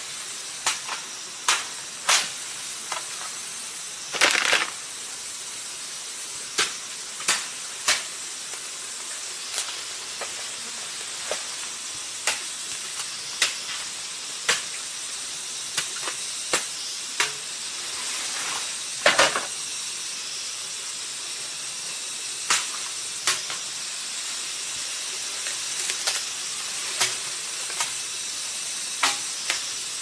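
A narrow metal spade stabbing down into hard, dry soil while a hole is dug, giving sharp strikes every second or two. A steady high hiss runs underneath.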